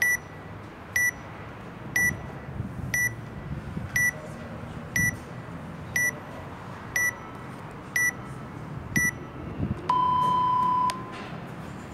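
Workout countdown timer beeping: ten short high beeps, one a second, then a single longer, lower-pitched beep about a second long that marks the start of the workout.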